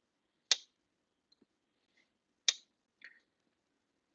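Two sharp metallic clicks about two seconds apart, then a faint tick, as a folding knife is worked in the hand.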